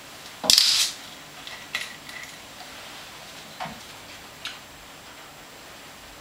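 Twist-off cap of a 40 oz glass bottle of malt liquor being opened: a short, sharp hiss of escaping carbonation about half a second in, then a few light clicks and taps as the bottle is handled.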